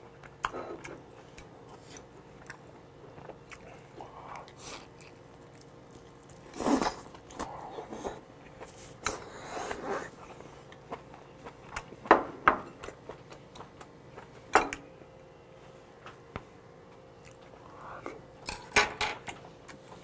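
Close-miked chewing and mouth sounds of a person eating boiled monkfish, irregular and wet, with scattered short clicks.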